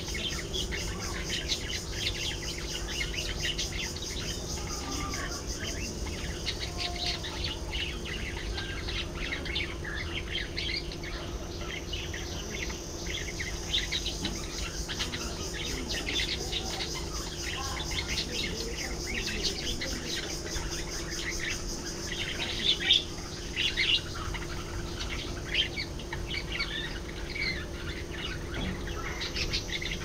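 A flock of budgerigars chattering and chirping: many quick, overlapping calls without pause, a few sharper ones standing out over a steady low hum.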